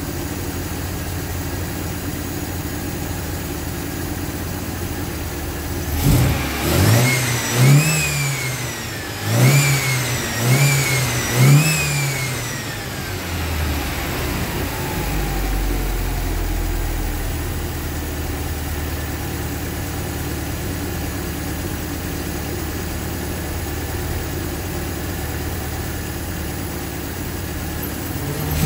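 1978 MGB's 1.8-litre B-series four-cylinder engine on twin SU carburettors idling, then revved up and let fall five times in quick succession, settling back to a steady idle; it starts to rev again near the end. The engine is being run while the carburettor mixture is adjusted, the revs checking how it picks up.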